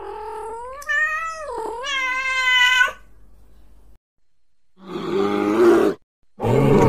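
A long, wavering, meow-like animal call lasting about three seconds. After a short pause come two harsher, rasping animal calls.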